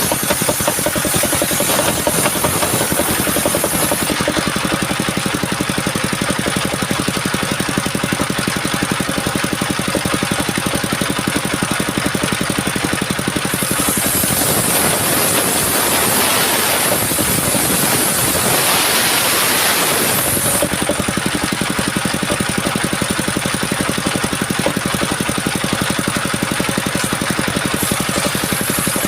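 Engine of a homemade mobile circular-saw sawmill running steadily, with a harsher, hissier stretch from about 14 to 20 seconds in.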